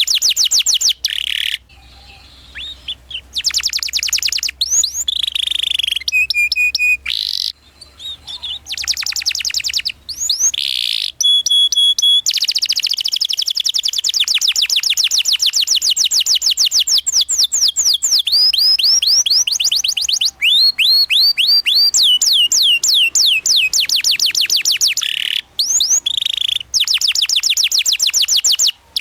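Domestic canary singing a long, fast song: rapid rolled trills of high chirps, repeated many times a second, with sweeping whistled notes and a few short pauses.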